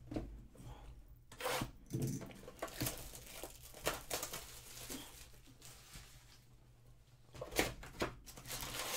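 Clear plastic shrink wrap being torn off a cardboard trading-card hobby box and crumpled by hand: a run of irregular ripping and crinkling, with the loudest rips about a second and a half in and again near the end as the box is opened.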